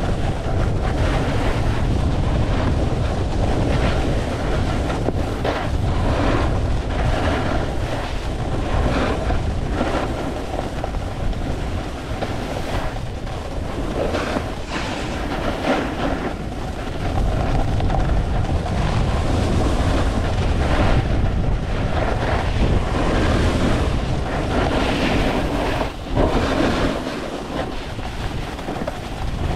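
Wind rushing over a GoPro microphone while a snowboard runs down a groomed slope. The board's edge scrapes and hisses over chopped-up snow, swelling and easing with each turn.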